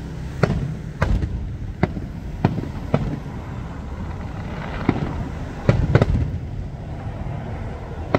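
Aerial fireworks shells bursting: about eight sharp bangs at irregular intervals over a continuous low rumble, with two coming close together about six seconds in.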